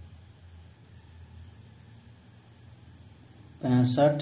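Steady high-pitched insect trill, unbroken and even; a man's voice comes in near the end.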